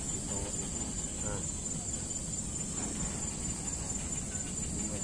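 Steady outdoor background: a continuous high-pitched insect drone over a low, even rumble, with faint distant voices in the first second or so.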